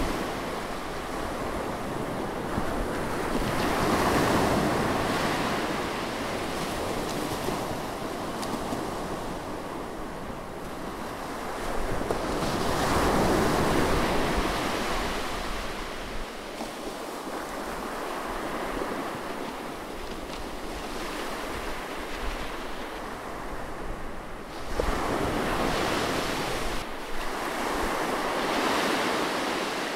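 Heavy ocean surf: big waves breaking in a continuous roar that swells up and eases off about every ten seconds.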